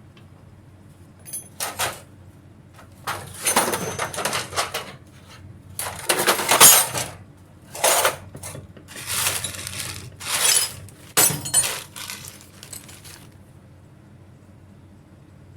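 Hard metal parts or tools clinking and clattering in a run of irregular bursts, with a short ringing clink about a second in.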